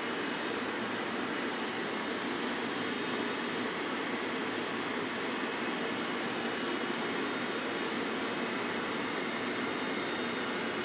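Steady, even rushing noise, unchanging throughout, with no distinct knocks, calls or voices.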